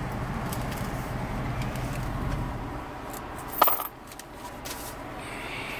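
Steady low hum of the idling car, then about three and a half seconds in a brief metallic jingle of coins being handled as change is taken.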